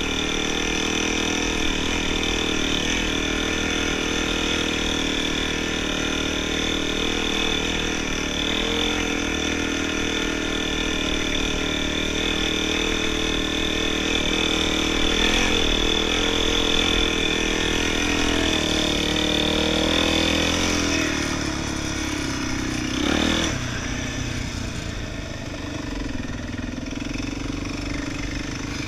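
Quad bike engine running steadily under throttle, heard from the rider's seat. About three-quarters of the way through it gives a short rev, then drops to a lower, quieter note as the quad slows.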